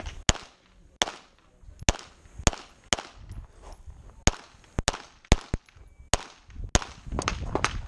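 A string of about a dozen pistol shots at uneven spacing, some close together in pairs and some single, as a handgun is fired rapidly at several targets.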